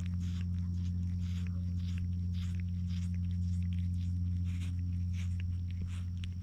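A cat licking and nibbling a person's finger, giving short rasping ticks a few times a second, over a steady low hum.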